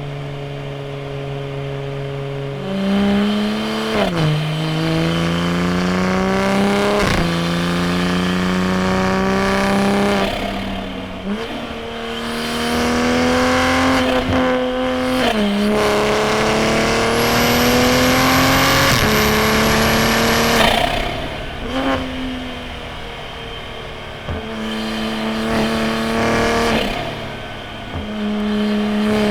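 Toyota GR Supra A90's B58 turbocharged 3.0-litre inline-six through a straight-piped titanium single-exit exhaust, pulling hard up through the revs again and again. Each pull climbs in pitch and ends in a sudden drop as the driver shifts or lifts, with a steadier, lower stretch at the start.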